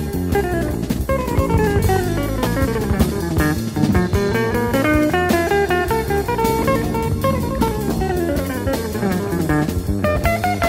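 Jazz guitar playing quick runs of single notes that climb and fall, with a drum kit behind it.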